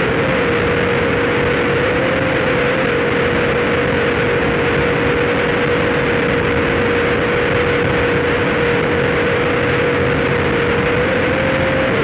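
Harsh noise wall recording: a dense, unchanging mass of distorted noise at constant loudness, with one steady mid-pitched tone held through it that steps up slightly near the end.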